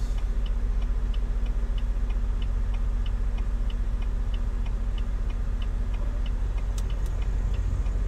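Volvo VNL860 semi truck's diesel engine idling while stopped, heard from inside the cab, with the turn signal ticking steadily about three times a second.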